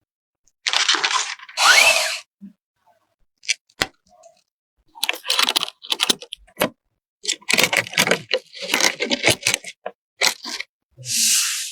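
Computer parts' packaging being handled and torn open: bursts of rustling plastic and cardboard with sharp clicks and snaps, separated by abrupt silent gaps.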